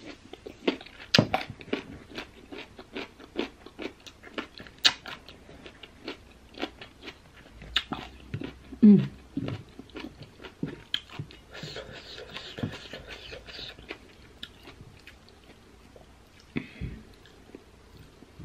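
Close-up crunching and chewing of crisp, unripe baby mango: a quick run of sharp bites and crunches.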